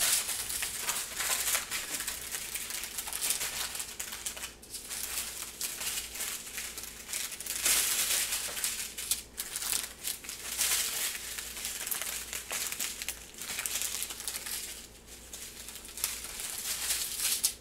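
Strips of small plastic bags of diamond-painting drills crinkling and rustling as they are unrolled and smoothed flat on a wooden table, in irregular bursts with brief quieter moments.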